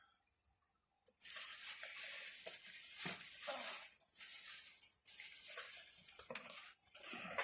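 Paper or cardboard packaging rustling and crinkling as it is handled by hand, in several stretches after about a second of quiet.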